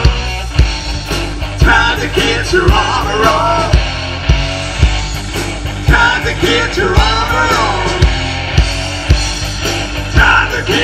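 Live rock band playing through a PA: electric guitars, electric bass and a drum kit. A lead melody bends and wavers in pitch over regular drum hits.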